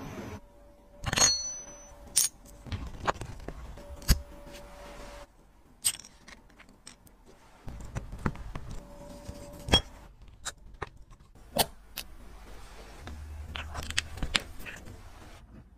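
Small metal watch parts and hand tools being handled: a string of sharp, separate clicks and taps with some light scraping, a few seconds apart.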